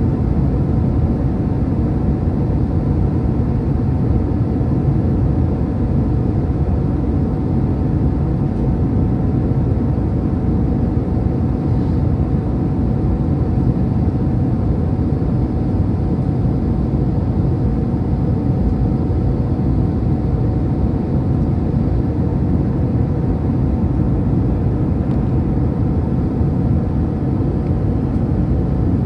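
Steady engine and airflow noise inside the cabin of an Airbus A319-100 on its descent to land, heard from a window seat beside the wing-mounted engine, with a thin steady tone running through it.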